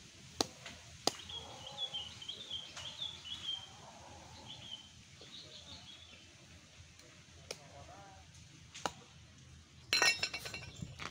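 Machete blade knocking into the husks of gayam (Tahitian chestnut) fruits, single sharp knocks a second or more apart, then a louder burst of clattering near the end. Birds chirp in the background.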